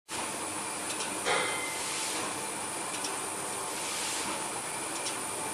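Setmaster suction-feed paper collator running: a steady airy hiss with a faint steady hum, faint regular clicks every second or two, and one louder swish about a second in.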